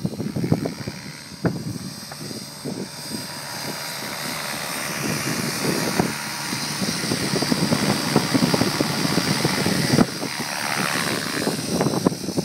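Align T-Rex 600 Pro radio-controlled helicopter flying, a steady high whine from its drive over the chop of the rotor blades, growing louder up to about ten seconds in.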